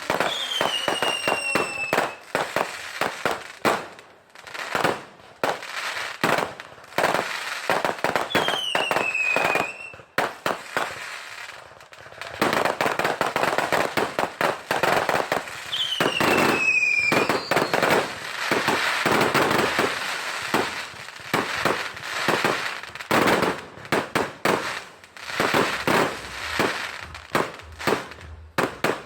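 Fireworks display: rapid bangs and crackling going off one after another, thickest in a long dense crackle through the middle. Three whistles falling in pitch sound about eight seconds apart.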